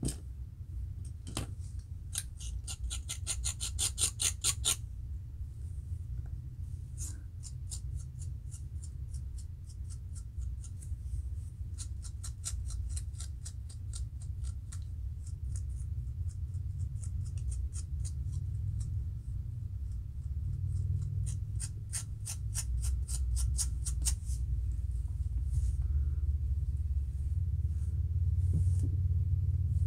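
A fine-toothed metal comb scraping over the scalp between locs in runs of quick short strokes, lifting dandruff flakes. A steady low hum runs underneath.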